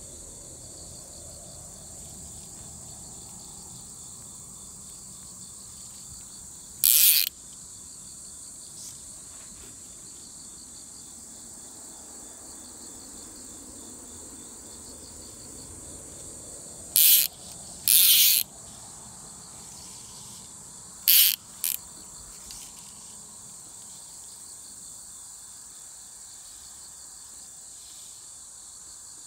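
Steady high-pitched chorus of insects in the grass, such as crickets. A few short, loud hissing bursts break in about a quarter of the way through, twice more past the middle, and twice in quick succession a little later.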